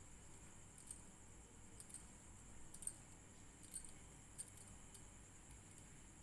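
Faint, irregular light clicks of a crochet hook and fingernails working wool yarn, about one or two a second, over a low steady hiss.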